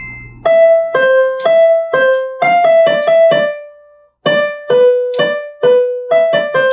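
Piano playing a simple single-note melody, one struck note at a time, in two short phrases with a brief pause about four seconds in.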